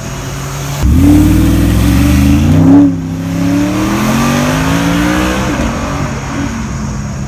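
Car engine accelerating hard: the revs climb for about two seconds, break off briefly about three seconds in as at a gear change, then climb again before dropping back.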